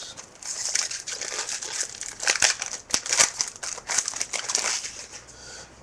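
Foil wrapper of a Topps Chrome trading-card pack being torn open and crinkled: a dense crackling with many sharp crackles.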